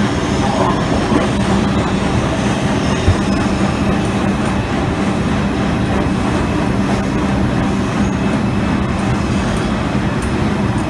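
R142 subway car running through the tunnel, heard at the end doors between two cars: a steady rumble of wheels on rail with a constant low hum, and a single knock about three seconds in.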